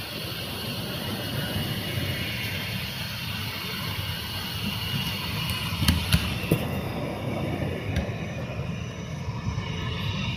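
Jet airliner engines running: a steady rumble with a faint high whine. A few sharp clicks come about six seconds in and again near eight seconds.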